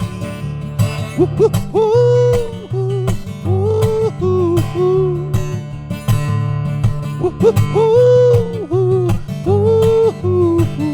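Acoustic guitar strumming chords under a wordless vocal melody, hummed or sung without words, in a few gliding phrases between sung lines of a folk song.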